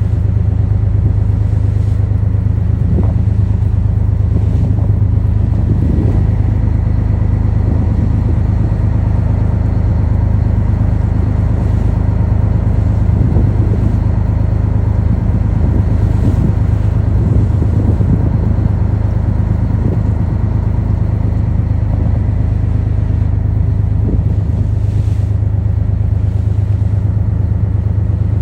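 Steady low drone of a ship's engine, with faint irregular knocks and clatter over it.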